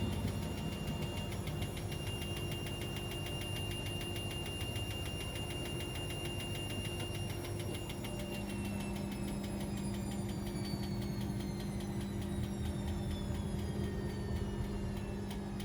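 Washing machine running with a steady motor hum and a fast rhythmic whir. From about eight seconds in, a high whine falls steadily in pitch as the drum slows down.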